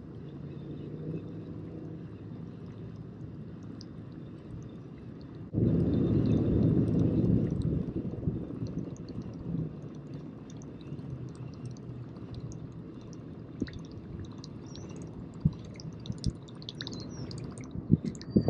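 Water gurgling and sloshing around a kayak hull as it moves. It turns suddenly louder about five seconds in for a couple of seconds, and there are a few light knocks near the end.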